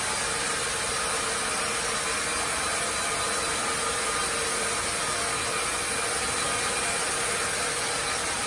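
Carriage band sawmill running steadily while its carriage feeds a tree-of-heaven log through the blade: an unbroken, even machine noise with a faint steady hum under it.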